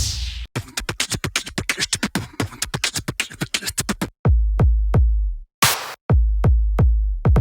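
Background electronic music with a drum-machine beat: a quick run of fast, even hits, then from about four seconds in heavy booming bass kicks broken by short silent gaps.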